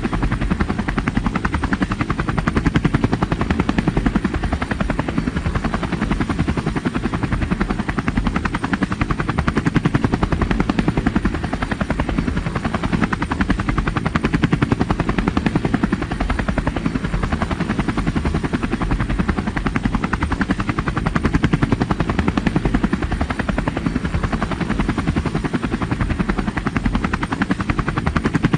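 A motor running steadily throughout with a fast, even pulse, heaviest in the low end.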